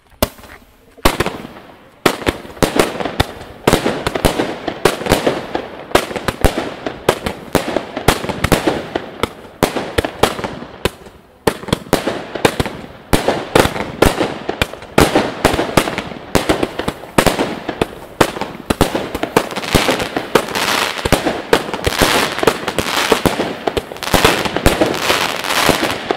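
Weco (Helios) 'Swords of Fire' 62-shot consumer firework battery with shells up to 25 mm calibre firing: one shot about a second in, then a rapid, almost unbroken string of launches and bursting shells.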